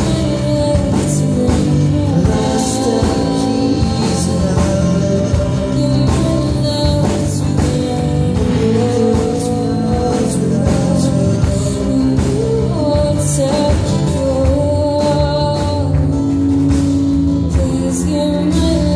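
Live folk song: a woman singing a slow melody over two strummed acoustic guitars.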